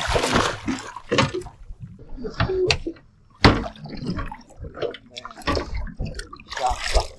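Water splashing as a hooked fish thrashes at the surface beside the boat's hull, with a sharp knock about halfway through.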